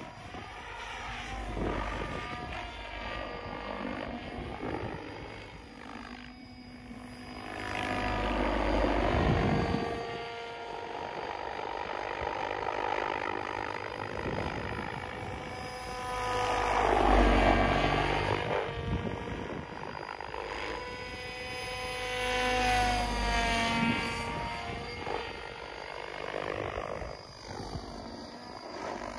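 Protos 770X Evo electric RC helicopter in flight: the rotors and motor whine, and their pitch slides up and down as it manoeuvres. The sound swells loud three times as the helicopter passes close, loudest about two-thirds of the way through.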